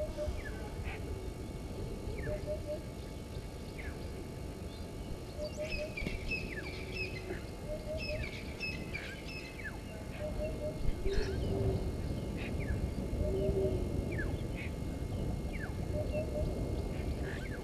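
Wild birds calling: many short, high chirps, and a low three-note call that repeats every couple of seconds, over a steady low background rumble.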